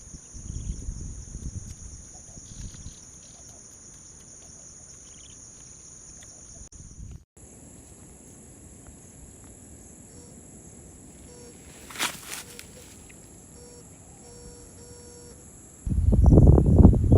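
Steady, high-pitched chorus of insects, its pitch shifting about seven seconds in. A brief hiss comes about twelve seconds in, and a loud low rumble sets in near the end.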